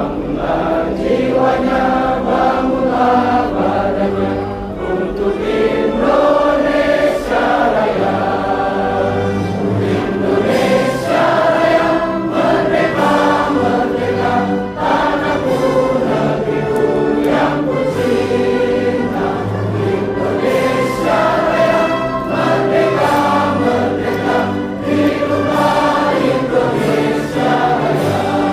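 Background music: a choir singing long held chords, with a steady low bass underneath.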